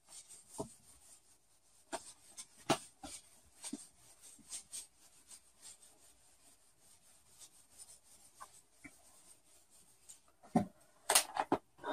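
Whiteboard eraser wiping marker writing off a whiteboard: faint, irregular rubbing strokes, with a few louder short sounds just before the end.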